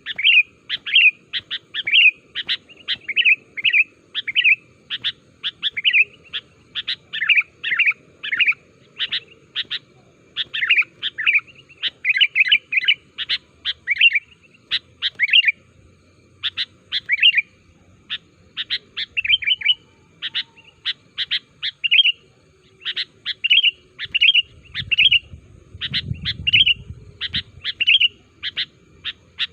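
Sooty-headed bulbul (kutilang) calling without pause: a rapid run of short, bright chirping notes, several a second, in bubbly chattering phrases.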